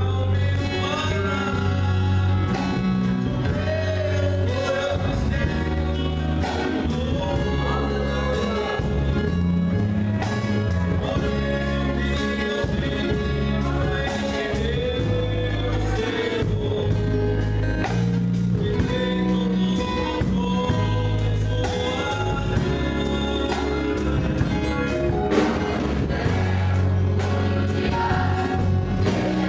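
Gospel song sung by a vocal group over band accompaniment, with a steady bass line and regular drum hits under the voices.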